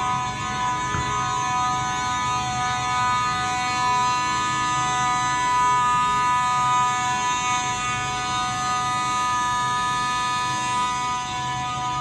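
Space Age fire alarm horns sounding continuously during an alarm system test: a steady, harsh buzzing tone with many overtones that does not pulse or break.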